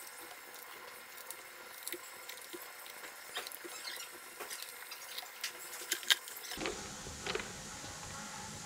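Faint scattered clicks and light metal taps of hand work on a stripped Iveco Cursor 13 diesel engine block, with one louder knock about six seconds in.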